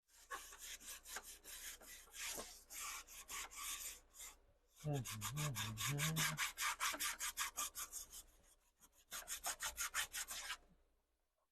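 Rapid, repeated rubbing strokes in several runs, with a short pause about four seconds in. A brief wavering low tone sounds in the middle.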